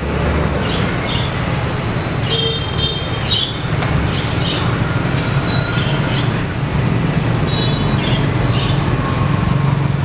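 Steady loud rumbling background noise, with short high-pitched chirps or squeaks cropping up every second or so.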